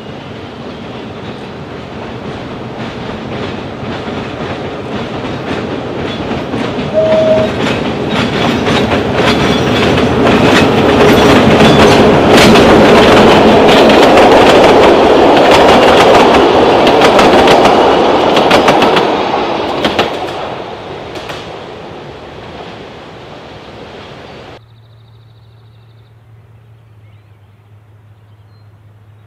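Diesel locomotive hauling passenger coaches on a 760 mm narrow-gauge line approaching and passing close by, the engine running and the wheels clicking over rail joints. It is loudest midway, fades as the train moves off, and cuts off suddenly near the end to a faint steady hum.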